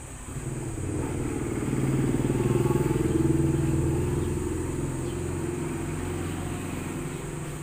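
A motorcycle engine passing by, getting louder to a peak a few seconds in and then slowly fading away.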